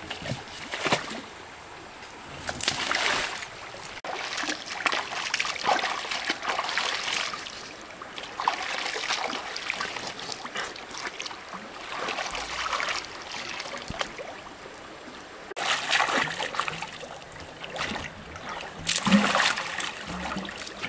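Water splashing and sloshing in irregular surges, with several louder splashes.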